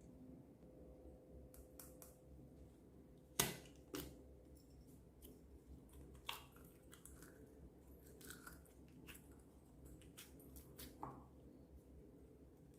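Slime being worked by hand: faint sticky pops, clicks and crackles at irregular moments, the sharpest pop about three and a half seconds in, followed by another half a second later.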